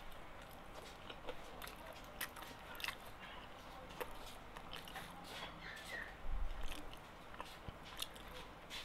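Close-up eating sounds: chewing, with scattered small clicks and rustles of a spoon working through gado-gado in a paper and banana-leaf wrap.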